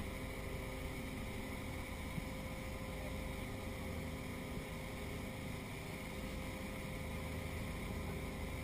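Parasail boat's motor running steadily with an even hum, under a constant hiss.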